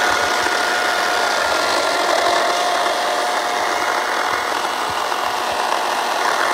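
14-inch electric chainsaw running steadily with a high motor whine, its chain cutting into a tree stump with a dense rasping hiss.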